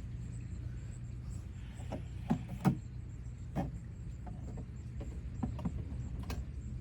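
Scattered light clicks and knocks, about eight of them spread irregularly, as parts are handled during the teardown, over a steady low hum.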